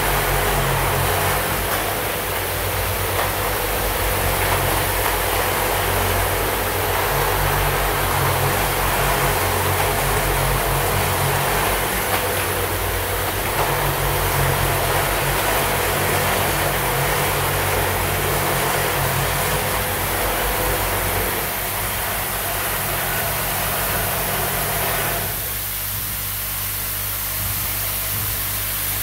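Automatic deodorant-stick assembly machine running: the steady buzz and hum of its vibratory bowl feeders and drive, with a low, unevenly pulsing drone. About four seconds before the end, part of the noise cuts off suddenly, leaving a lower hum.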